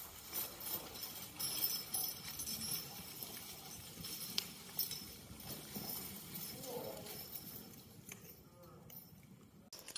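Percheron–Standardbred cross draft mare walking through snow while skidding a log, with scattered hoof steps and clinking harness.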